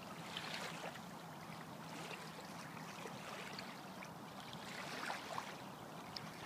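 Small lake waves lapping with a steady soft wash and light splashes now and then.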